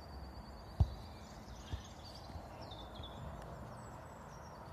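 Two dull thumps, the louder about a second in and a softer one near two seconds, over steady outdoor background with birds chirping.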